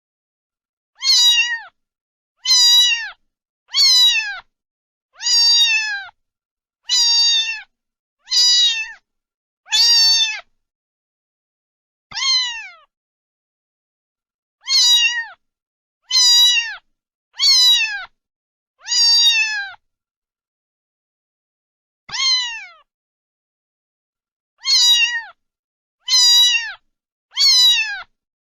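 Domestic cat meowing over and over, about sixteen short meows that each drop in pitch at the end. They come roughly one every second and a half, with a few longer pauses, and there is dead silence between them.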